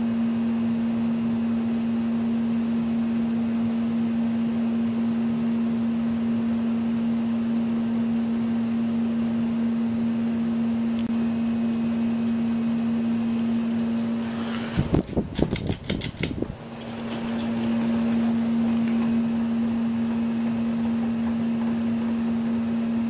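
1987 Lasko 3600L 36-inch ceiling fan running with a steady motor hum. About fifteen seconds in, a quick run of sharp clicks or knocks breaks in for about two seconds, then the hum carries on.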